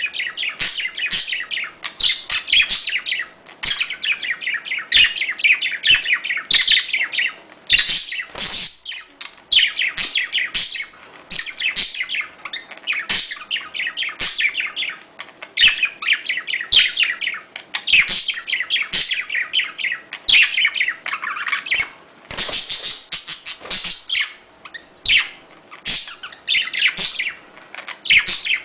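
Budgerigars chattering and warbling, a continuous run of fast chirps with sharp clicks mixed in.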